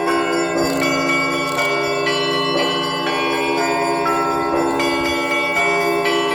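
Several church bells rung together in a Russian Orthodox peal (zvon). A heavier bell is struck about once a second over a continuous, pulsing ring of smaller bells.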